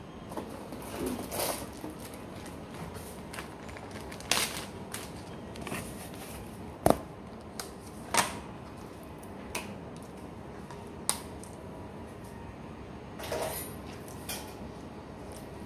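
Kitchen handling sounds: scattered knocks and clatters of a plastic cutting board and raw chicken being set down on a countertop, with a few sharp knocks about seven, eight and eleven seconds in.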